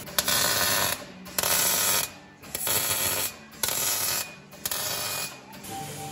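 MIG welder arc crackling in five short bursts of stitch or tack welding on the car's steel floor, each burst starting sharply and stopping after well under a second.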